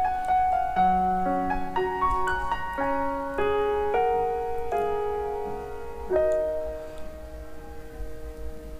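Background piano music: a slow melody of single held notes, one about every half second to second, dying away over the last few seconds.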